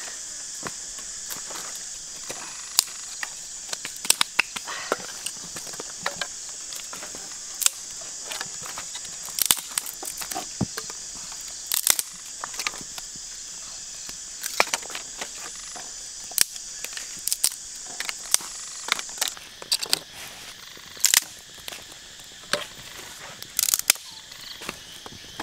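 Dry sticks and twigs snapping and clattering as firewood is broken and gathered by hand, with sharp cracks every second or so. A steady high hiss runs beneath and fades about three-quarters of the way through.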